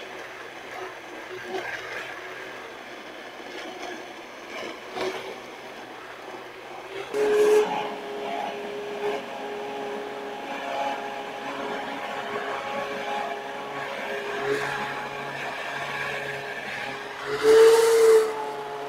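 Industrial immersion blender motor running while puréeing tomatoes, peppers, bread and olive oil into gazpacho. About seven seconds in its hum gets louder and a little higher, with a louder surge near the end.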